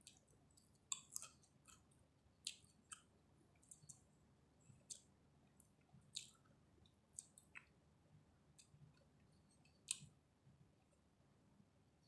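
Close-up chewing of chicken biryani: quiet, irregular, sharp wet mouth clicks, more than a dozen of them, over a faint low hum.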